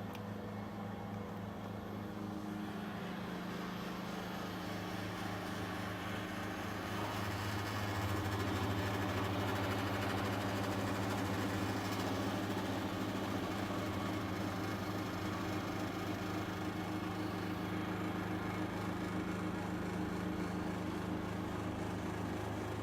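Thojomech TFC11 CNC mill's spindle running and cutting aluminium dry, without coolant, over a steady machine hum. The cutting noise grows louder about eight seconds in and then holds.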